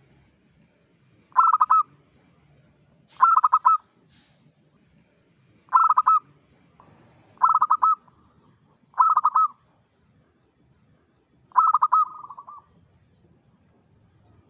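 Zebra dove (perkutut) singing its cooing song: six short phrases of quick stuttered coos a couple of seconds apart, the last one trailing off a little longer.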